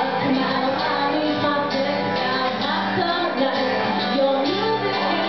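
A woman singing a song live into a microphone, with guitar accompaniment.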